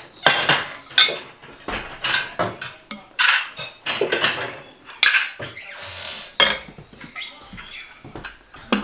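Metal serving spoon and fork clinking and scraping against ceramic plates and a serving bowl as food is dished up: a quick, irregular run of sharp clinks.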